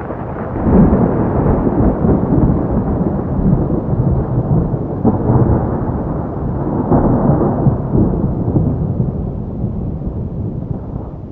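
Long rolling thunder rumbling on, swelling about a second in and again around five and seven seconds, over heavy rain.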